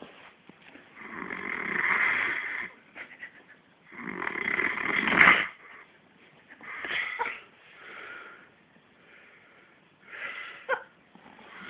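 A man snoring heavily, pig-like, a long snore every two to three seconds: the two loudest come in the first half, then shorter, fainter ones follow. He is sleeping off a bout of heavy drinking.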